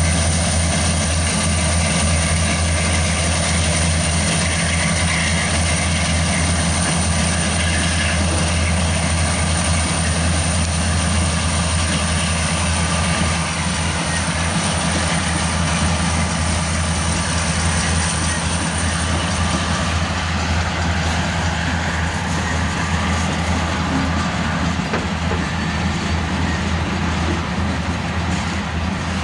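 A lash-up of Union Pacific diesel locomotives passing close by with a loud, steady engine drone. About halfway through, the engines give way to freight cars rolling past on the rails.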